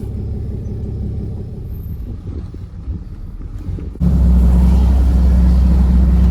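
Tractor engine running steadily. About four seconds in, the drone jumps much louder and holds steady.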